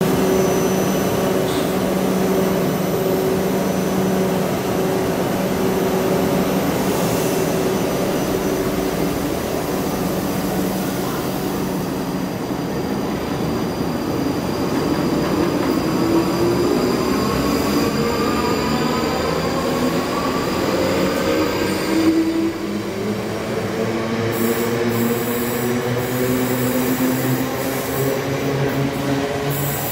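South Western Railway electric multiple-unit train close by, humming steadily at first, then pulling away with its electric traction motors whining in pitches that climb as it gathers speed, over the rumble of wheels on the track.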